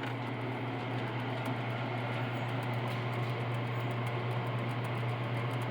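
Smith-Corona Coronet Super 12 electric typewriter's motor running steadily at idle, a constant hum with a little tap in it, pretty quiet overall.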